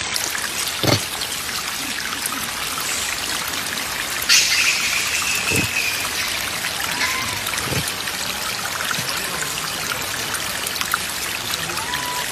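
Water trickling and splashing steadily over wet rock, with a few brief high-pitched calls over it, the clearest about four seconds in.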